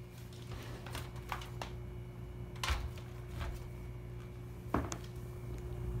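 1980s Lakewood Model 223 box fan running on low speed: a steady motor hum with a faint steady tone above it. Several sharp clicks and knocks sound over it, the loudest about two and a half and nearly five seconds in.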